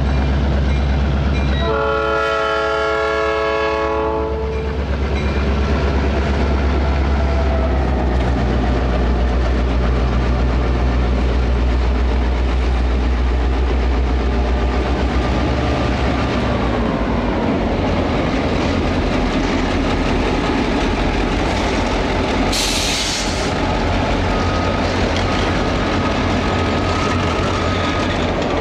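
EMD SD9 diesel locomotives passing close by. A chime horn blast ends just after the start and another sounds from about two to four seconds in. Then comes the deep, steady drone of the locomotives' 16-cylinder two-stroke diesels, changing to a broader rumble as the units go by, with a short hiss about 22 seconds in.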